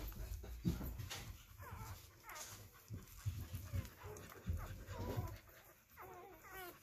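Two-day-old puppies squeaking and whimpering while nursing: several short, wavering high squeals, the longest near the end, with occasional soft low thumps underneath.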